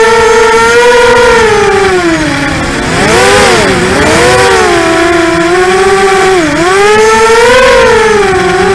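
ImmersionRC Vortex 250 Pro racing quadcopter's brushless motors and propellers whining as heard on board. The pitch rises and falls with the throttle, with a deep dip about three seconds in and a short sharp dip about six and a half seconds in.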